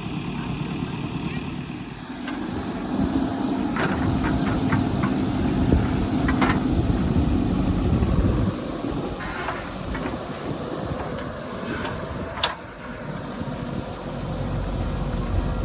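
Backhoe loader's diesel engine running, revving up under load about two seconds in and dropping back after about six seconds. A few sharp knocks sound over it.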